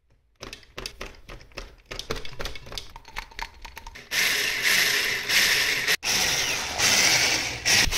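Irregular clicks and taps of a metal whisk against a mixing bowl, then, about halfway through, an electric hand mixer switches on and runs steadily, its whisk beating butter into powdered sugar for icing, with a momentary break about two seconds after it starts.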